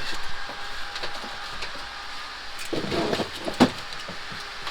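Handling noises as the air conditioner's outdoor unit is shifted into its final position: scattered clicks, a scrape a little under three seconds in and a sharp knock just after.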